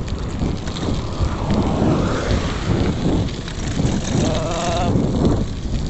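Wind buffeting the microphone and road rumble from a bicycle ridden at speed. A brief wavering tone cuts in a little past four seconds.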